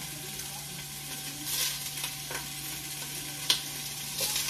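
Beef searing in a hot pan: a steady sizzling hiss, with a few sharp clicks, the loudest about three and a half seconds in.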